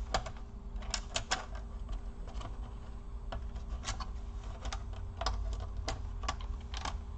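Irregular small clicks and taps of a thin pry tool and fingertips against a laptop's plastic case and internal parts as the Wi-Fi antenna cables are worked free, over a faint steady hum.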